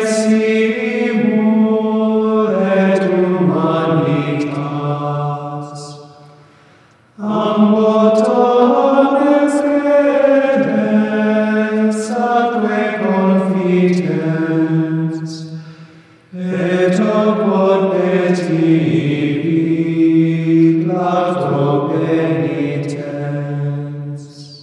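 Male choir of Benedictine monks chanting together in three long phrases, with short breaks between them.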